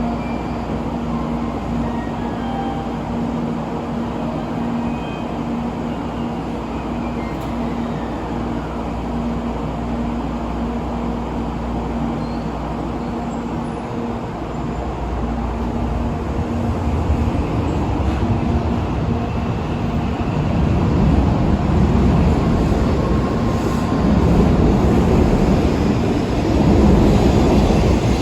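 N700A Shinkansen train pulling out of the station: a steady electrical hum at first, then the rumble of the passing cars and running gear swelling as the train gathers speed, loudest over the second half.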